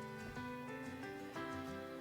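Background instrumental music: sustained pitched notes changing about every half second.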